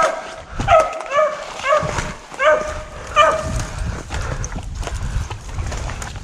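Deer-hunting dog barking in short, repeated yelps, about one or two a second, that stop a little after three seconds in, over a low rumbling noise.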